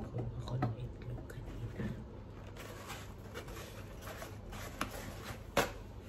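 Hands handling objects: soft rustling and scattered light clicks and knocks, with one sharper click about five and a half seconds in, over a low steady hum.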